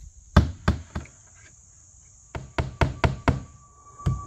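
Hammer driving nails to fasten vinyl finishing strip to the wall: three strikes, a pause, then a quicker run of about five strikes near the end. Insects buzz steadily in the background.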